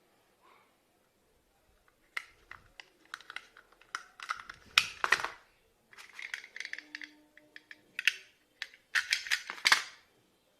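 Vintage toy cap guns being handled and worked: an irregular run of sharp clicks, snaps and clatter, loudest about five seconds in and again near the end.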